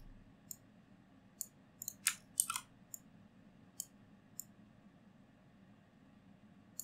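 Scattered faint computer mouse clicks, about ten in all, with a quick cluster of louder clicks about two seconds in, as equations are selected, copied and pasted, over a faint steady room hum.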